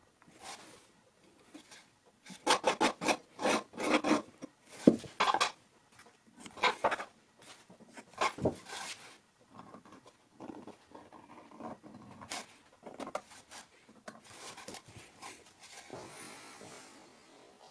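Marking tools scratching across a flat board: the points of a pair of dividers and a lead-holder pencil scribing lines. A run of quick, loud scraping strokes starts about two seconds in, and lighter scratching follows.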